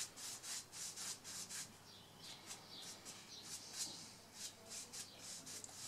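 A rag rubbing along a wooden baseball bat in quick, faint strokes, about three to four a second, wiping on a quick-dry water-based clear coat.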